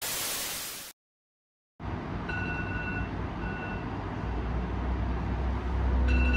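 A burst of hiss lasting about a second cuts off into a moment of silence. Then a steady low rumble of background noise rises, with three short high electronic beeps.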